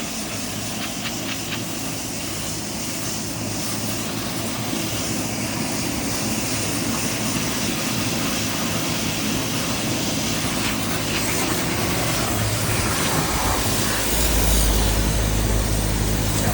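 Steady hiss of water spray rinsing an AC condenser coil, over a low steady machine hum. The low rumble grows louder about two seconds before the end.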